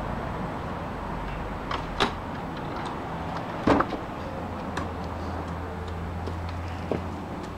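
Wooden shed door being unlatched and swung open: a few clicks about two seconds in, a louder clunk a little before four seconds as the door comes free, and another click near the end, over a steady low background hum.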